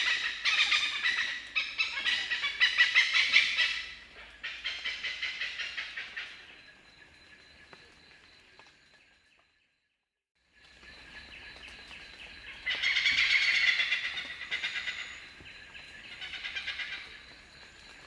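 Oriental pied hornbill calling: loud, sharp, rapid 'kek-kek-kek' cackling in runs. The calls fade out about halfway, stop for about a second, then start again with another loud run and a shorter one near the end.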